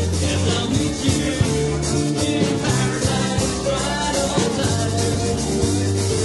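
Live rock and roll band playing, with a steady drumbeat under a bass line and a voice singing.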